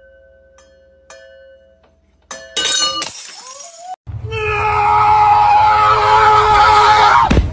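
Glass wine bottles ringing as a dog knocks against them, each light clink re-sounding the ringing about every half second. About two and a half seconds in there is a sharp crash. From about four seconds a loud, noisy sound carrying a wavering pitched tone runs until it cuts off suddenly near the end.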